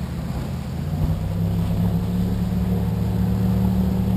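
Ski boat's engine droning steadily as it runs past on the lake, growing gradually louder, its pitch rising slightly about a second in.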